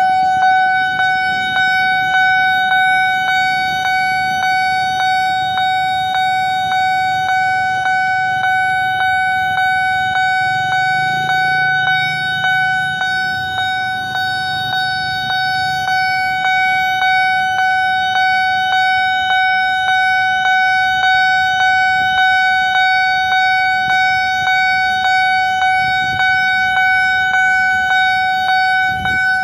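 Railway level-crossing warning bell ringing in an even, repeating rhythm of about one and a half strokes a second, a single ringing tone that fades slightly after each stroke: the signal that a train is approaching and the barriers are down. Low motorcycle engines run underneath around the middle.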